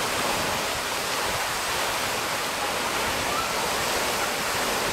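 Tall vertical fountain jet rushing and splashing, a steady even water noise.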